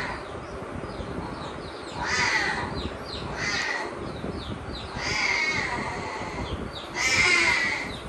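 Newborn lion cub crying with raspy, cawing calls, four in a row about one to two seconds apart.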